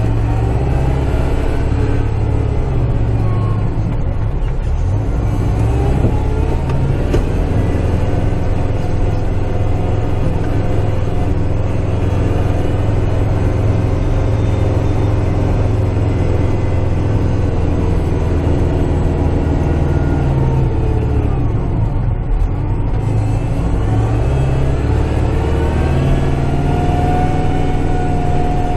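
Kubota tractor's diesel engine running steadily, heard from inside the cab as the tractor drives in high range, its pitch rising and falling a few times. A steady whine comes in near the end.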